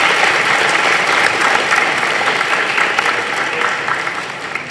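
Audience of children and adults applauding, a dense patter of many hands clapping that starts to die away near the end.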